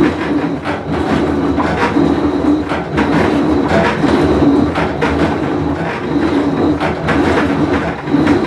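Whirlpool Cabrio top-load washer running, with a loud, continuous rumble and irregular rattling that pulses about once a second: the noise of a bad tub bearing.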